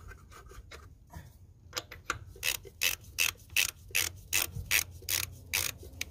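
Click-type torque wrench set to 150 foot-pounds clicking on a truck's lug nut: a few faint clicks, then from about two seconds in a quick run of about eleven sharp clicks, roughly three a second.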